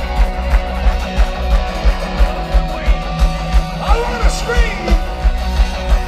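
Rock band playing live through a festival PA, heard from within the crowd: loud electric guitars over a fast, steady kick-drum beat of about three beats a second.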